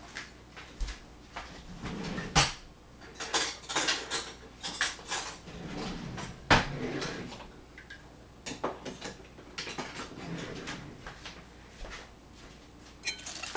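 Kitchen dishes and utensils clinking and knocking: scattered sharp clicks and knocks at irregular intervals, the loudest about two and a half and six and a half seconds in.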